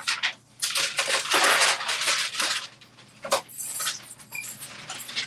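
Sheets of paper rustling and crinkling as they are handled and smoothed out, in a few bursts of a second or two, with a sharp crackle a little past the middle.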